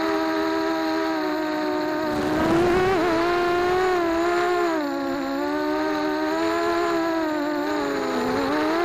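Racing quadcopter's brushless motors and propellers whining, heard through the drone's own onboard camera, the pitch sliding up and down with the throttle. A rush of wind noise on the microphone comes in briefly about two seconds in.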